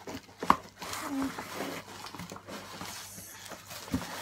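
Bubble wrap and cardboard rustling and crinkling as boxed figures are pulled out of a packed shipping box, with a sharp click about half a second in.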